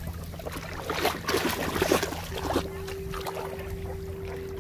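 Splashing steps of someone wading through shallow seawater, a quick run of strokes in the first half, over a steady low background of surf and wind. A single steady tone comes in about halfway and holds.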